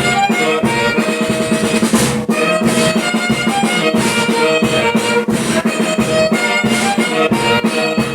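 Band music: brass and a drum kit playing a steady beat.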